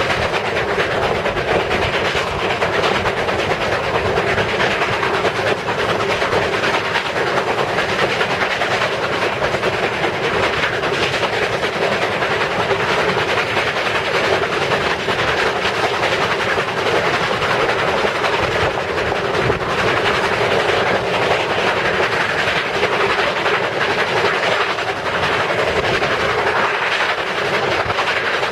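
Steam locomotive 4960, a 2-8-2, running at speed, heard from the vestibule right behind it: a steady, loud rush of the engine's exhaust chuffing mixed with the clatter of wheels on the rails.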